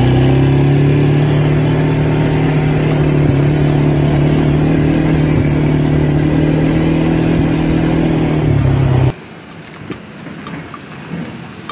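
ATV engine running at a steady, nearly constant pitch. It cuts off abruptly about nine seconds in, leaving only faint ticking.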